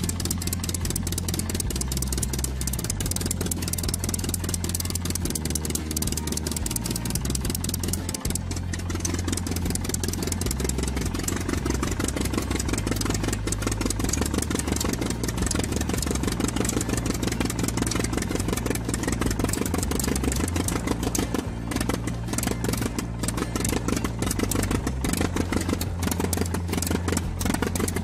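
Engine sound effect for a toy tractor: a diesel-like engine running steadily, its pitch shifting now and then.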